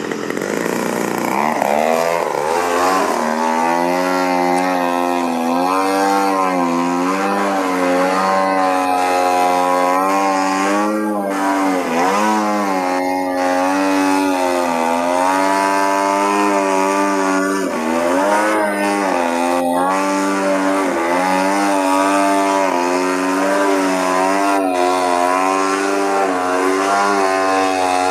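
Gasoline engine and propeller of a Hangar 9 Cap 232 80-inch RC aerobatic airplane in flight. The pitch drops sharply at the start, then rises and falls again and again as the throttle changes through the manoeuvres.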